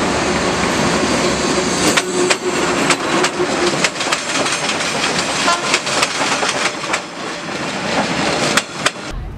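Train passing close by, a loud steady rumble with the wheels clacking over the rail joints. It cuts off suddenly near the end.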